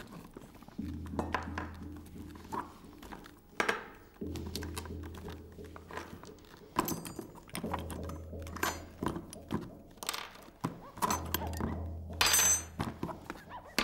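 Small objects being taken out of a leather handbag and set down on a table one after another: a scatter of knocks and clinks with rustling of the bag. Under them runs background music with a low, sustained bass note that changes every few seconds.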